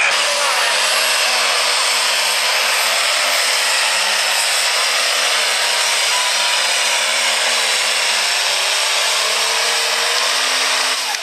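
Turbocharged diesel engine of an International pro stock pulling tractor run flat out under load as it drags the weight-transfer sled: a loud, steady, dense sound with a wavering engine note that dips slightly about eight seconds in and then picks up again.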